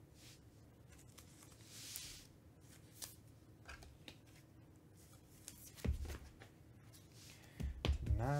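Faint handling of a trading card as it is slipped into a plastic sleeve and rigid toploader: a soft rustle about two seconds in, a few light clicks, and dull taps around six and eight seconds.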